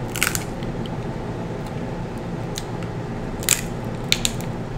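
Crab leg shell cracking and crackling as it is bitten and pulled apart by hand, in a few short clusters of sharp cracks: near the start, about three and a half seconds in, and around four seconds. A steady hum runs underneath.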